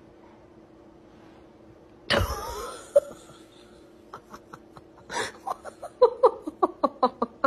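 A sudden loud cry with a falling pitch about two seconds in, then a person laughing in short rapid bursts that grow louder toward the end, over a steady hum.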